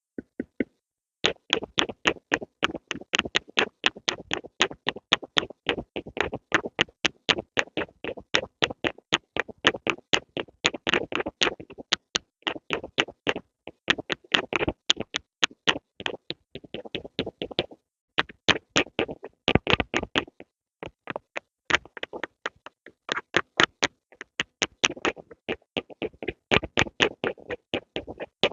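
Pencil on paper: quick short strokes, several a second, starting about a second in, with a few longer drawn-out strokes mixed in.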